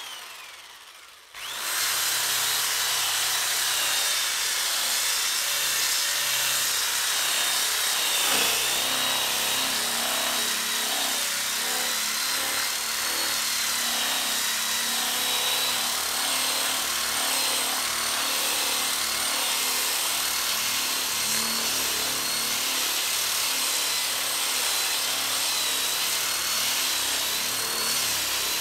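Electric drill spinning a rotary sanding pad against wood: a steady motor whine over a continuous rasping sanding hiss. After a brief, quieter start, it settles into the full steady sound about a second and a half in.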